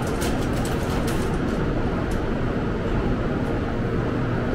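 700 series Shinkansen train standing at the platform with its on-board equipment running: a steady hum and rush, with a few light clicks in the first second.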